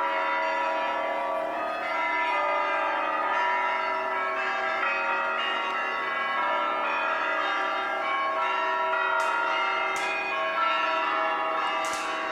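Church bells of the Holy Dormition Cathedral ringing in an Orthodox peal, many bells sounding together in a dense, continuous ring. A few sharp strikes of small bells stand out in the last few seconds.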